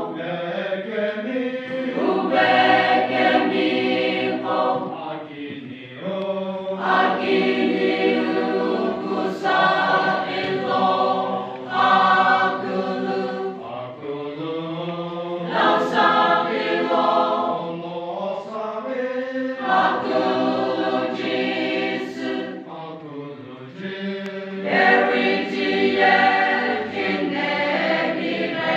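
Church choir singing together in long sustained chords, phrase after phrase with brief breaks between phrases.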